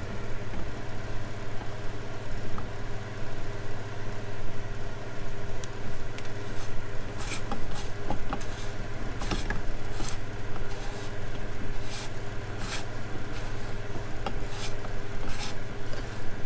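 Short metallic clicks and scrapes, coming about once or twice a second from about five seconds in, as a prop shaft locking ring is turned by hand into an outboard lower unit's gearcase. A steady low mechanical hum runs underneath throughout.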